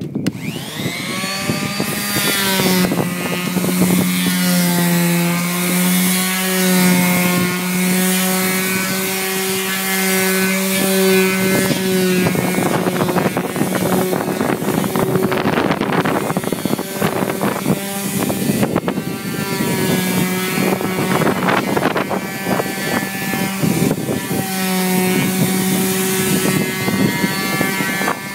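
Electric power sander spinning up, then running steadily while sanding the boat's fiberglass gel coat. Its motor pitch dips now and then under pressure, with the pad rasping against the hull.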